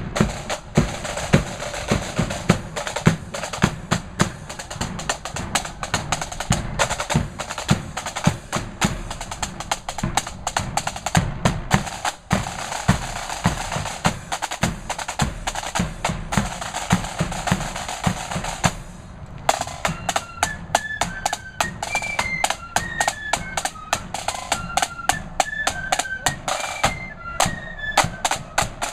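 Marching flute band playing: snare and bass drums beat a steady march, and about two-thirds of the way through the flutes come in with a high melody over the drums.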